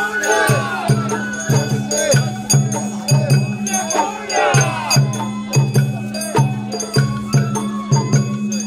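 Sawara-bayashi festival music played on a parade float: a steady drum beat, about two strokes a second, under flute lines and a held tone.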